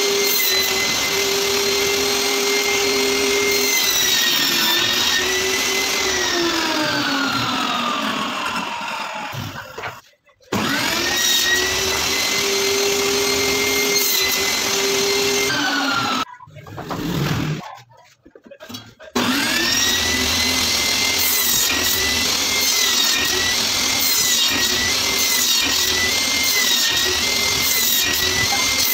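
Table saw running with a steady whine; about six seconds in the motor winds down with a falling pitch, then starts up again with a quick rising whine, and later runs up again, its pitch dipping briefly over and over as the blade cuts the wood.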